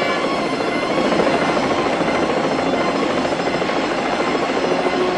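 Steady engine and rushing-air noise of a Boeing 747 jetliner in flight.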